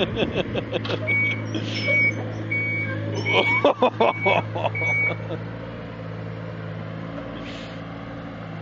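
Excavator engine running steadily while its alarm gives six short, evenly spaced beeps over the first half. Rapid clattering accompanies the beeps at the start and again in the middle, then only the engine is left.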